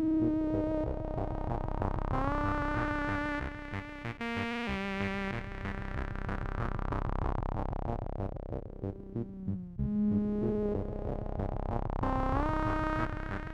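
Chiptune music from a Commodore 64's 8580 SID sound chip: held synth notes that slide upward in pitch about two seconds in and again near the end, over a steady low rhythmic pulse.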